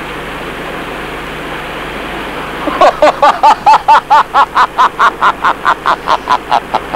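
A man laughing hard and long: a rapid run of short "ha" bursts, about four or five a second. It starts about three seconds in and slowly weakens. Under it lies a steady rushing noise.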